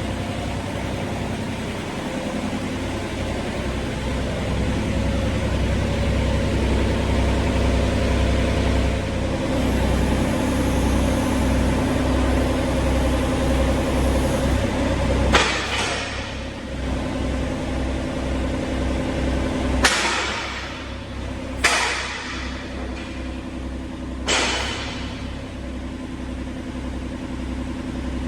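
Mini excavator's diesel engine running steadily, a little louder for a stretch early on. In the second half, four sudden sharp rushes of noise, each fading over about a second, break over the engine.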